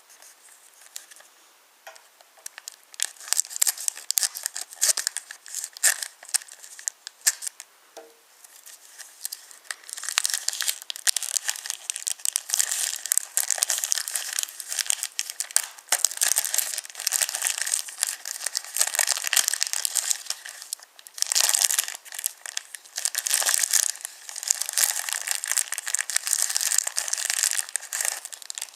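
Wooden toy trains rattling along wooden railway track: a dense, high-pitched clatter of small clicks and knocks. It is faint for the first couple of seconds, then runs on with brief lulls.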